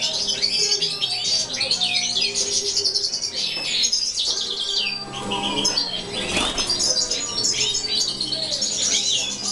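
Several caged European goldfinches singing and twittering together, a dense, continuous run of quick chirps and trills. A brief wing flutter sounds about six seconds in.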